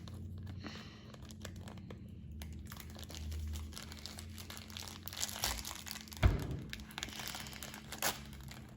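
Plastic packaging crinkling and rustling as it is rummaged through by hand, with a sharp knock about six seconds in and a smaller one near the end.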